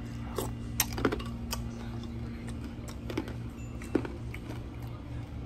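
A spoon clicking and tapping against a bowl a handful of times as cereal is eaten, over a steady low hum.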